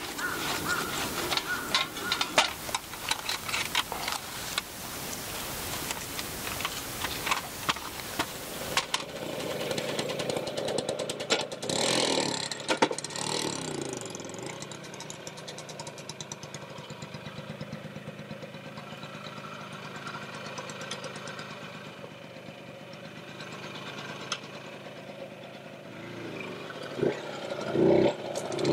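Clinks and clatter of a small folding metal camp stove being handled. Then, from about nine seconds in, a Vespa 125 ET3's small two-stroke single-cylinder engine runs steadily, louder briefly near twelve seconds, and the scooter pulls away near the end.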